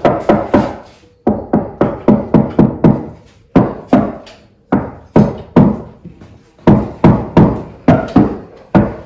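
Repeated sharp knocking, like hammer blows, about three or four strikes a second in groups with short pauses between, each ringing briefly in the room.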